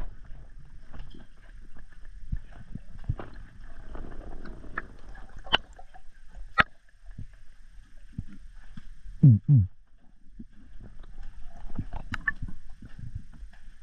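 Underwater sound picked up by a diver's camera in a kelp forest: a muffled low crackle and knocking with scattered sharp clicks. About nine seconds in come the loudest sounds, two short low tones falling in pitch in quick succession.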